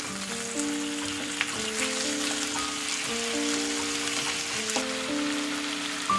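Chicken thighs sizzling and crackling as they fry in a pan, a steady hiss, under background music with a plain, steady melody.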